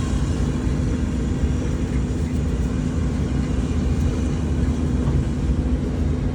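Diesel engine of a piece of heavy equipment running steadily: a low rumble with a steady hum.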